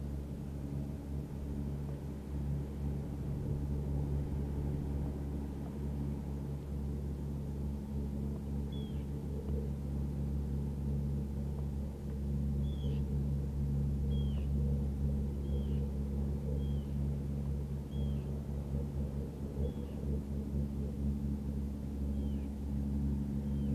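Steady low rumble of a Víkingur 1135 fishing boat's Yanmar diesel engine running at speed. From about a third of the way in, a bird calls short, downward-sliding notes about once a second.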